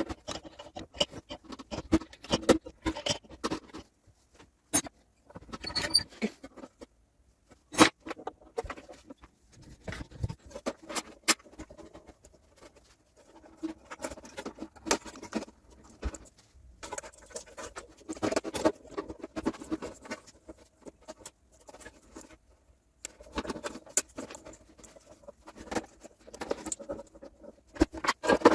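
Irregular clicks, taps and light rattles of small metal and plastic parts and tools being handled, with some scraping in between.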